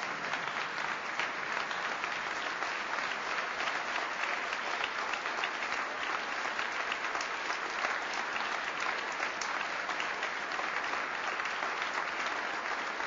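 A large audience applauding: many hands clapping together in a dense, steady ovation that neither builds nor fades.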